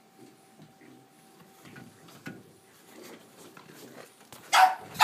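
A Boston terrier barking: two loud barks in quick succession near the end.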